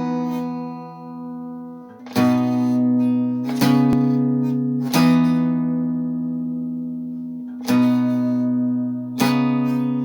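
Acoustic guitar intro: single strummed chords, each left to ring out, about five strums spaced one and a half to two and a half seconds apart.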